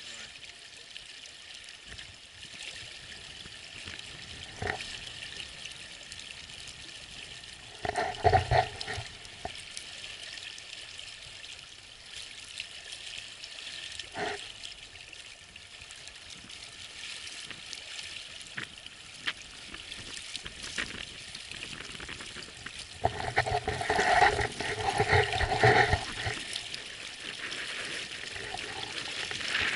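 Water splashing and lapping close to a small tender's hull, a steady hiss. There is a louder burst about eight seconds in and a longer one around twenty-four to twenty-six seconds.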